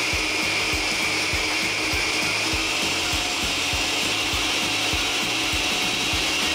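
Countertop blender running steadily at high speed, puréeing cooked vegetables in their cooking water into a smooth cream; a continuous whir with a high whine over it.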